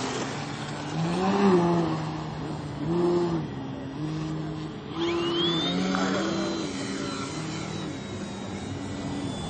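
Engine and propeller of a large radio-controlled aerobatic plane (Extreme Flight 78-inch Extra) buzzing in flight, its pitch stepping up and down several times as the throttle is worked. A thin high whistle rises about five seconds in and then holds.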